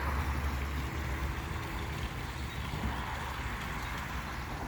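Steady rushing of a backyard pond waterfall, over a steady low rumble.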